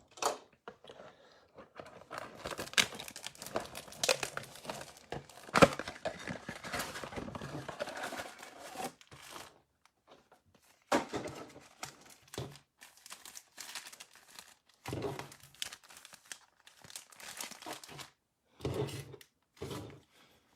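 Plastic wrapping on a sealed trading-card box and its packs crinkling and tearing as they are opened by hand. A long stretch of crinkling with sharp clicks comes first, then shorter separate bursts.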